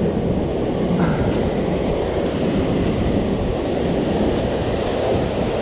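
Ocean surf breaking and washing over rocks, a steady rushing noise, with wind on the microphone.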